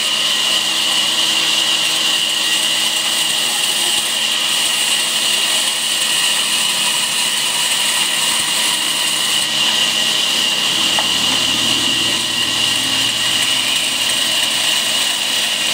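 Band saw running and cutting through a block of wood, a steady high whine over a constant hiss.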